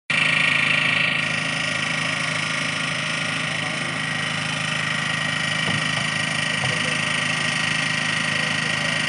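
An engine running steadily at a constant speed, with a steady high-pitched whine over it.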